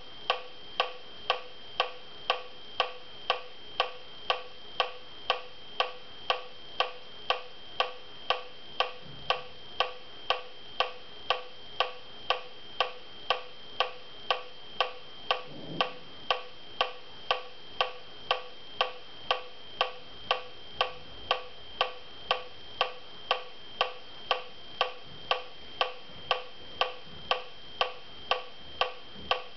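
Electronic metronome clicking at a steady tempo of about two beats a second, every click the same short high-pitched tick.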